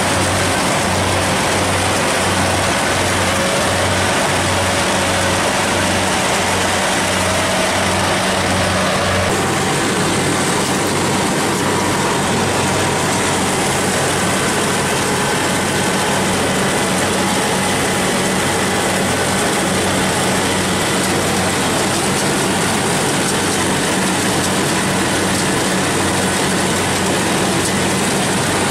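Kubota DC70 rice combine harvester's diesel engine and harvesting machinery running steadily. For the first nine seconds a low throb pulses about one and a half times a second; then the sound changes abruptly to a steadier, denser running noise.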